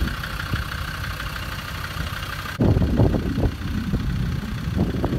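Land Rover Defender Td5's five-cylinder turbodiesel engine running at low revs while positioning a boat trailer on a slipway, with a steady high whine over it. About two and a half seconds in, the whine stops and the low rumble grows louder and rougher.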